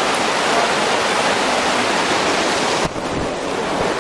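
Heavy rain falling, a steady even hiss, with a brief dip about three seconds in.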